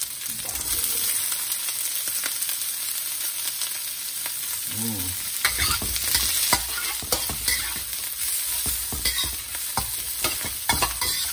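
Onions, garlic, ginger and chopped bok choy stems sizzling in a hot steel wok. From about halfway, a metal wok spatula scrapes and clanks against the wok as the vegetables are stir-fried.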